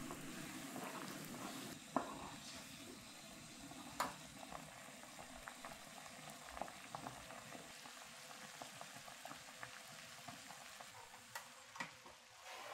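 Water bubbling at a boil in a small pot of glutinous-rice tapioca pearls, stirred with a wooden spoon near the start. A few sharp clicks stand out over the steady faint bubbling.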